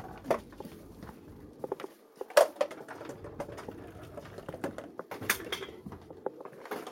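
Scattered clicks and taps, with three sharper knocks spaced about two to three seconds apart, over a faint low hum.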